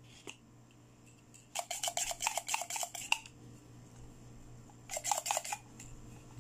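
Plunger of a pink plastic toy syringe sliding in its barrel: a rapid run of scratchy plastic rubbing, in two spells, one of about a second and a half and a shorter one near the end.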